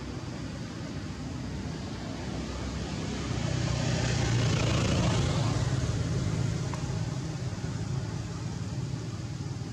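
A motor vehicle passing by: a low engine hum with tyre hiss that swells about three seconds in, peaks, and fades away over the next few seconds, over a steady background rush.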